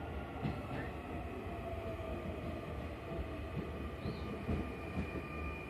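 Sotetsu 9000 series electric train pulling into the platform and slowing, its running rumble carrying steady whining tones, one of which falls slightly in pitch as it brakes. Several wheel knocks over rail joints sound through it.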